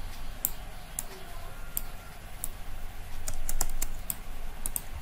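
Computer keyboard keys and mouse buttons clicking, with light scattered clicks and a quick run of them about three and a half seconds in, over a low steady hum.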